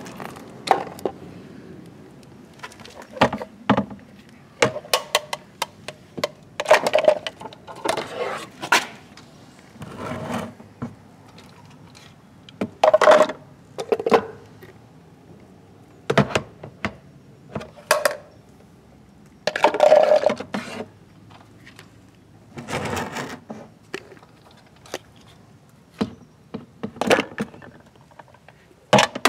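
Reacher grabber handling small plastic toy wheelie bins: irregular knocks, clicks and short scraping, rattling bursts as the jaws clamp, and the bins knock together and slide on the ground, with quiet gaps between.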